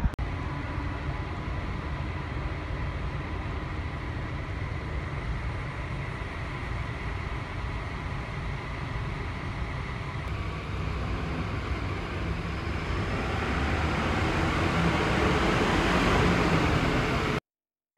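Shuttle bus engine and road rumble, steady at first and growing louder over the last few seconds as the bus pulls in, then cut off abruptly near the end.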